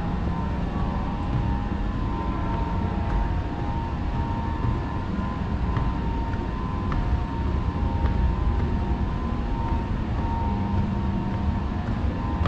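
A steady low rumble with a faint steady hum above it, and a few light footsteps on metal stair treads.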